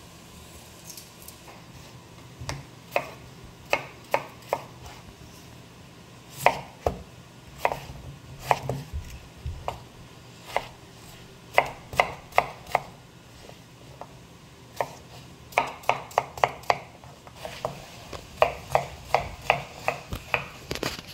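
A knife chopping peeled potatoes on a cutting board: sharp, separate cuts in uneven runs with short pauses, then a quicker run of cuts near the end.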